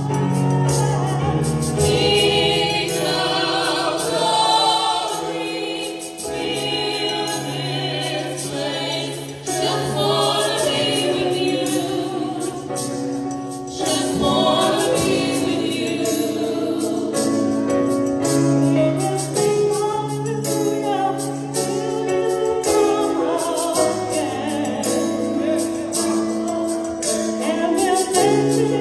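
Live gospel song sung by a small group of women singers with keyboard accompaniment, their voices over steady low held chords.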